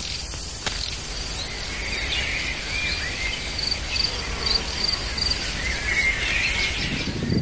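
Forest ambience of insects trilling and birds chirping: a steady high insect trill that breaks into a run of rapid pulses midway, over a constant high hiss, with short bird chirps near the start and again near the end.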